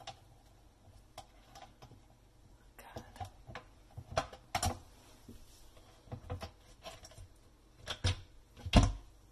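Plastic filter parts in the base of a Samsung dishwasher clicking and knocking as they are handled and worked loose by hand: irregular light clicks, the loudest knock near the end.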